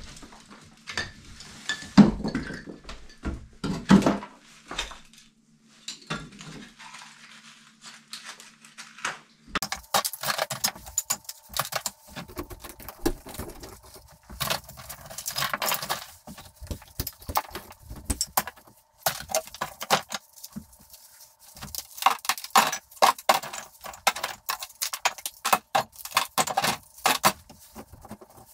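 Plaster and wooden lath being pried off a wall by hand: crumbling plaster and strips of lath clattering as they break away and are dropped into plastic bins. A scattered series of knocks gives way, about ten seconds in, to a dense, rapid clatter.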